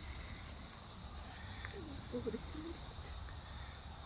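Quiet outdoor ambience: a steady high insect drone over a low wind rumble, with a faint brief warbling sound about two seconds in.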